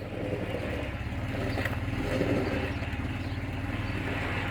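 Vehicle engine running steadily, grown louder just before the sound settles to an even level.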